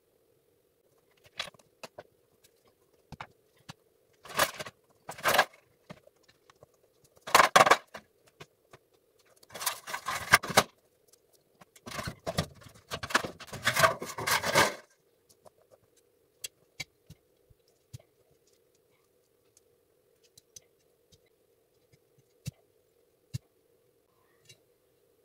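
A run of short scrapes and rustling handling noises, bunched densest in the middle, then only scattered single clicks over a faint steady hum.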